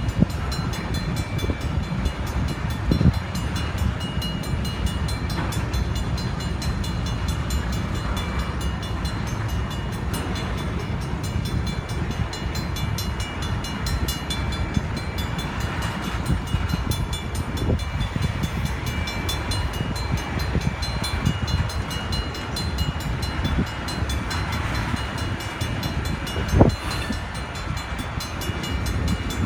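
Freight train cars, covered hoppers and tank cars, rolling past close by: a steady low rumble of steel wheels on rail with frequent clicks and a few sharp clanks, the loudest near the end, over faint steady high ringing tones.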